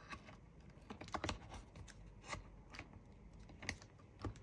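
Faint, irregular clicks and taps of a MacBook Air's aluminium display assembly being handled as its hinges are worked into the laptop base.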